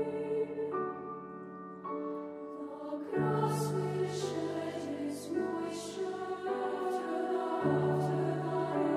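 Treble choir of young women's voices singing a slow choral piece with piano accompaniment. Held piano chords come first, and the full choir comes in about three seconds in, with crisp 's' consonants.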